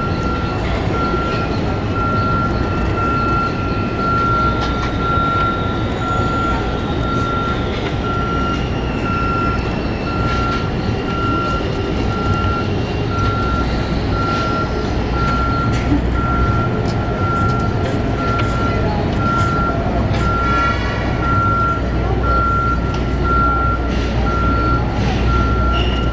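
A vehicle's reversing alarm beeps at one pitch, evenly and without a break, over the low, steady rumble of city traffic.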